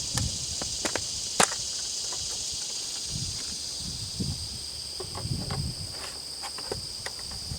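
Steady high-pitched drone of insects, with scattered sharp clicks and soft knocks from the Henry AR-7 survival rifle's parts being handled and fitted together; the sharpest click comes about a second and a half in.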